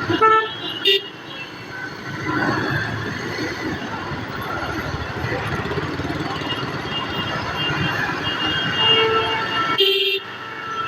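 Busy road traffic with vehicle horns honking, heard from a moving motorcycle, with a steady rush of engine and wind noise under the horns.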